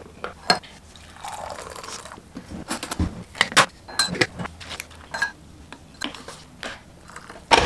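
Coffee poured from a French press into a ceramic mug, a hiss of about a second, followed by a run of light clinks and rattles from a spoon in a glass sugar jar as sugar is tipped and spooned into the mug.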